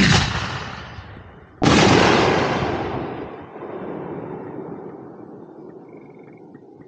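Two booms from aerial fireworks, one right at the start and a louder one about a second and a half later, each trailing off in a long fading rumble over several seconds.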